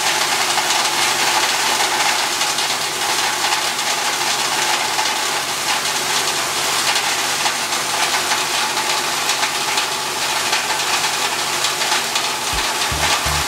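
Small stationary petrol engine running steadily, driving a plastic shredder through a belt, with a dense even noise over the engine note. Music begins near the end.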